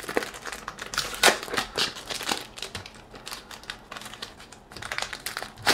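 A small cardboard cosmetics carton and its folded paper leaflet handled and unfolded: irregular paper crinkling and rustling with sharp little clicks.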